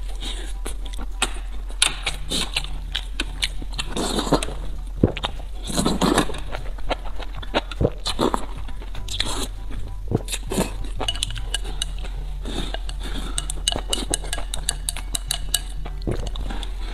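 Eating sounds: chopsticks clicking on a bowl and metal tray, with slurping and chewing of noodles in broth, the longest slurps about 4 and 6 seconds in.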